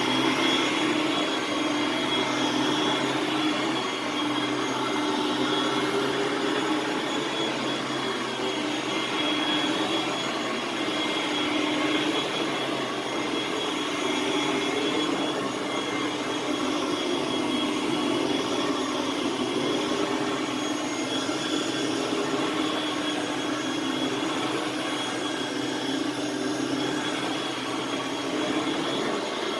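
Hoover Platinum Collection bagged upright vacuum cleaner running steadily, its motor and fan holding one even pitch.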